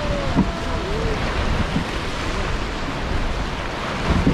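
Flowing river water and wind buffeting the microphone aboard a river boat: a steady rushing noise with a heavy low rumble.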